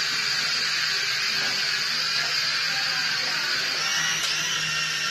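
Small toy quadcopter's motors and propellers whining steadily in flight, a high-pitched buzz whose pitch rises slightly about four seconds in.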